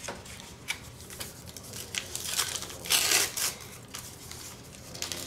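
Foil wrapper of a 1989 Upper Deck baseball card pack crinkling and tearing as it is opened by hand, in irregular bursts, the loudest about three seconds in.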